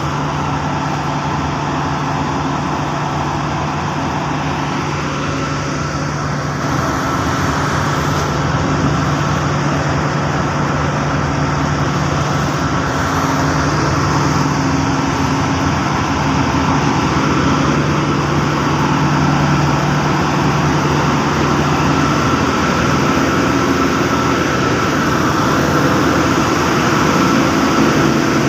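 Heavy machinery on a tin-mining suction dredge running steadily: a constant engine drone with a steady hum in it, getting a little louder about six seconds in.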